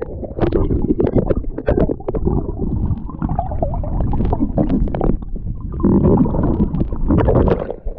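Seawater sloshing and gurgling against the camera's microphone as a swimmer wades into the sea: a loud, uneven, rumbling wash broken by many small splashes and knocks.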